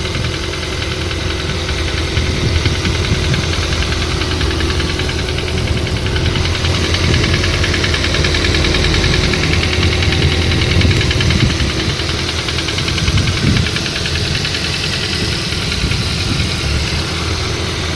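Nissan CR14DE 1.4-litre four-cylinder engine idling with a steady, rapid knocking rattle, the knock that shows up with the engine cold. The uploader's verdict is a faulty clutch in the variable valve timing (VVT-i) cam phaser.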